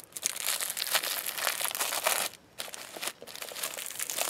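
Clear plastic shrink wrap being torn and peeled off a Blu-ray case, crinkling continuously, with a short pause a little over two seconds in.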